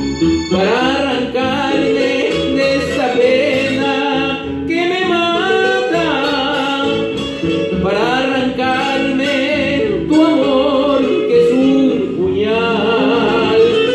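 Ecuadorian pasillo music: a guitar backing with a man singing a wavering melody into a handheld microphone.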